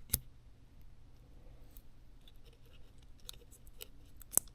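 Small clicks and taps of parts being handled and pressed inside an opened Pixel XL phone during a battery replacement: one sharp click just after the start and another near the end, with faint light taps between.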